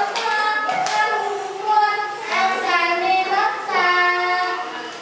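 Singing of a song in held notes, with a single sharp tap a little under a second in.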